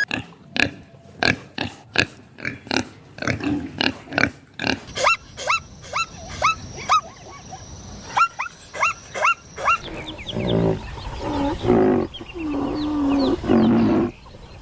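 A series of farm animal calls: short sharp calls at about three a second, then short high chirping calls that rise and drop, then lower, longer calls in the last few seconds.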